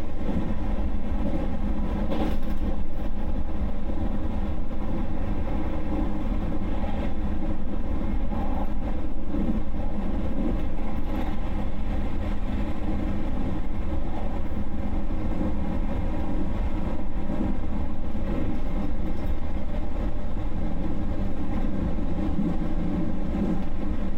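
Electric train running steadily on the JR Nara line: a continuous low rumble with a steady hum over it.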